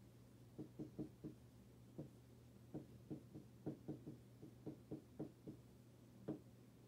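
Marker writing on a whiteboard: a run of faint, short, irregular squeaks and taps, a few each second, as letters are drawn.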